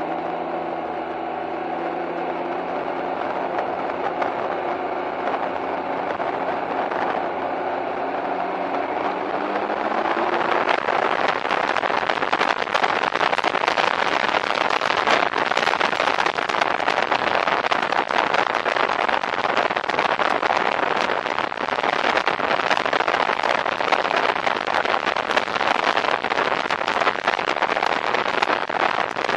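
Can-Am Ryker three-wheeler's engine running at low speed, its pitch rising as it accelerates about a third of the way in. Then a steady rush of wind and road noise on the microphone takes over at riding speed and drowns the engine.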